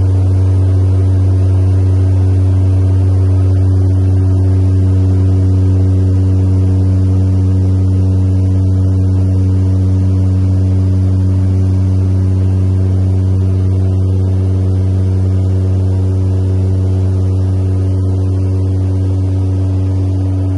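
Steady propeller drone inside the cabin of a de Havilland Canada Twin Otter turboprop seaplane in cruise: one strong low hum with a stack of overtones above it and a faint rushing hiss, holding even throughout.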